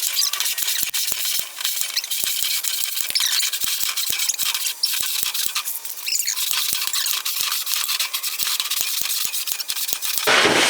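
Metal parts scraping and squeaking with many small clicks as a tight-fitting part is forced along. An aluminum shim is breaking up and being dragged out with it.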